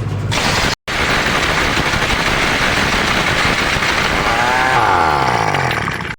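Loud, steady rushing machine noise. It drops out abruptly for a moment just under a second in, and a tone glides in pitch near the end before the noise cuts off.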